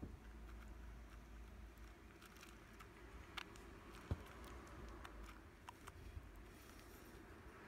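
Faint, scattered small clicks and rustles of a dwarf hamster rummaging among seeds in a plastic food dish, with one sharper click about four seconds in.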